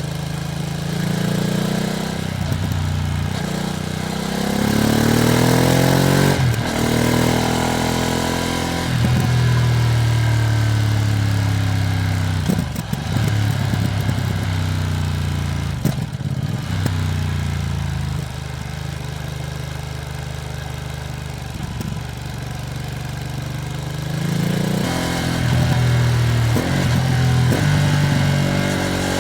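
Ducati Streetfighter V2S V-twin engine pulling through the gears while riding, its pitch rising under throttle and dropping at each shift or roll-off, several times over, with wind noise. The bike is in its running-in period, ridden gently.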